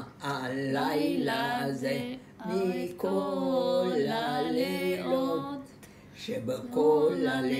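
An elderly woman singing a Passover song unaccompanied, in three long-held phrases with short breaks between them.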